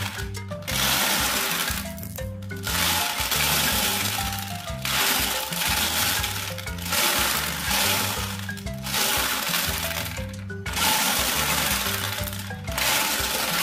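Marbles rattling and churning inside the turning plastic drum of a Bruder Scania toy cement mixer truck, swelling and dropping back every couple of seconds, over background music with a stepping bass line.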